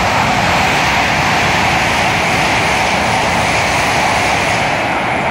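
CRH5 high-speed train passing at speed without stopping: a loud, steady rush of air and wheel-on-rail noise.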